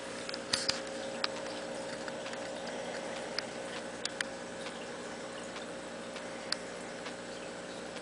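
Aquarium background: a steady hiss with a faint hum under it, and about half a dozen small, sharp ticks scattered irregularly, like drips in the tank.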